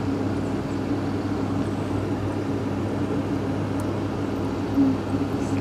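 Steady low mechanical hum of an appliance motor running, with one brief low sound near the end.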